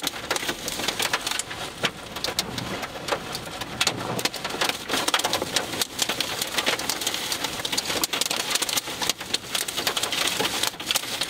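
Wind-driven rain and hail pelting a car's windshield and roof, heard from inside the cabin: a dense, unbroken patter of hard hits over a steady rush.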